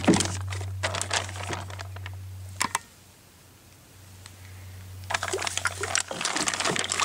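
Plastic zipper bag crinkling and rustling as brake caliper halves are handled and pushed into it, with irregular small clicks and knocks. It goes quiet for about a second and a half in the middle.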